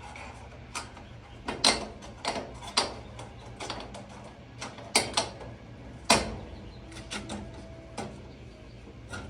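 An irregular series of sharp clicks and knocks, about a dozen, with a few louder strikes among them.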